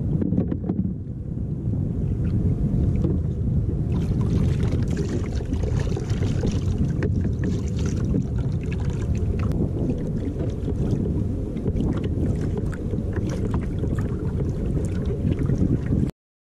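Wind buffeting the microphone of a camera mounted on a kayak at sea, a steady low rumble, with scattered crackles and water sounds over it; the sound cuts off suddenly near the end.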